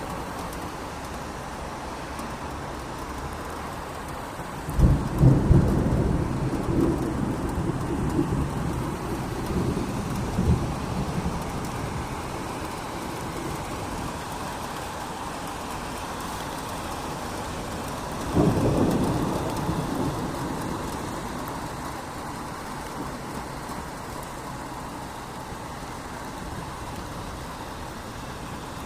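Steady rain falling, with thunder: a sudden loud clap about five seconds in that rolls on for several seconds, and a second rumble about two-thirds of the way through that fades away.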